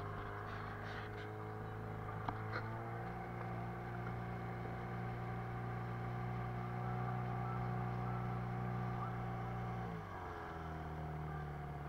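Small boat's outboard motor running steadily under way; about ten seconds in its pitch dips briefly as it slows a little, then holds steady again.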